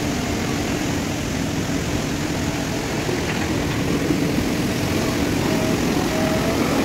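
JCB 3DX backhoe loader's diesel engine running steadily while the front loader bucket is worked.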